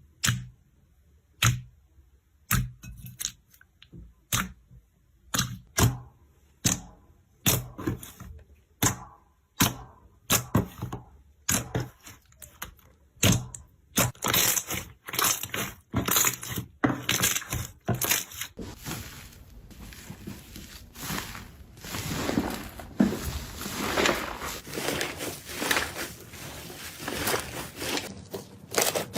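Slime being pressed and squeezed by hand, giving a string of sharp pops and clicks. About halfway through they turn into a dense run of crackling.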